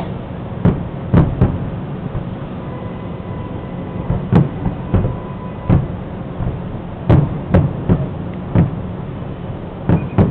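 Aerial firework shells bursting in a quick, irregular run of about a dozen booms, several in close pairs, over a steady low hum.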